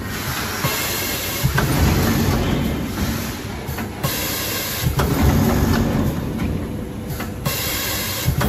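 Multi-lane vertical stick-pack packing machine running: a steady mechanical clatter with sharp clicks and hisses of air as its pneumatically driven sealing jaws cycle.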